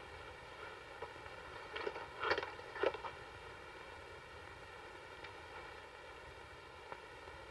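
Quiet room tone with a steady faint hiss, broken by three or four soft knocks about two to three seconds in.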